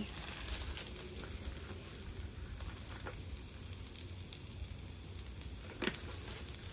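Frozen steak fries sizzling faintly on a hot flat-top griddle while cooking oil is poured onto the steel beside them, with one sharp tap near the end.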